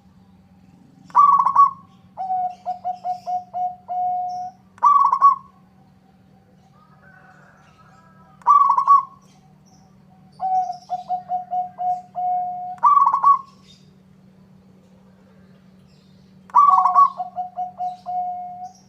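Zebra dove (local perkutut) singing. Three phrases, each a loud higher coo, a quick run of about seven short, lower staccato notes, and another loud coo.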